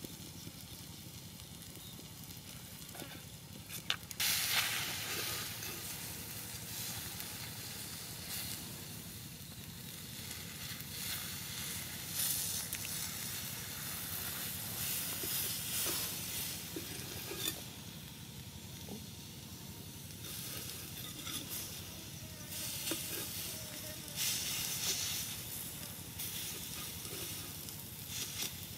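Pig's liver sizzling on a hot cooking rock: a steady hiss that swells now and then, with a few short clicks of a knife blade against the stone as the liver is cut.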